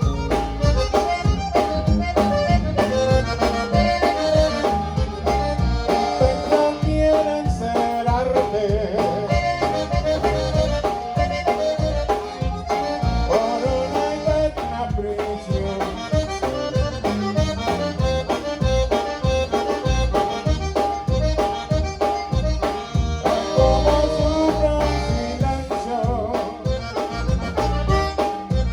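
Live conjunto band playing an instrumental passage: accordion carrying the melody over a steady bass and drum beat.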